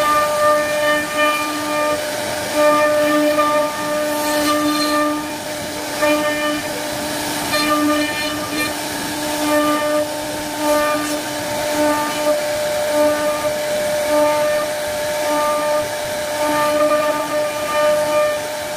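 CNC router spindle whining at a steady pitch as its bit carves a relief pattern into a wooden door panel. The whine swells and fades in stretches every second or so as the cutter works through the wood.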